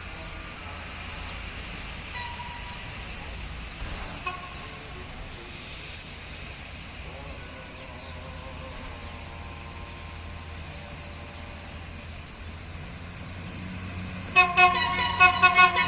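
Diesel multiple unit's horn sounding a loud, rapid run of short toots, about three a second, starting near the end. A low diesel engine rumble builds under it as the train approaches.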